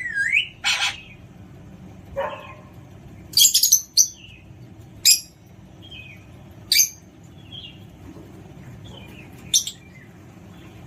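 Alexandrine parrot giving short, sharp screeches and chirps: a cluster of loud ones a little over three seconds in, then single calls every second or two.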